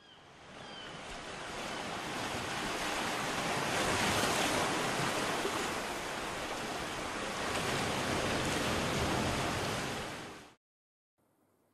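Sea waves washing: a steady rush of water that fades in, holds, and cuts off abruptly about ten and a half seconds in.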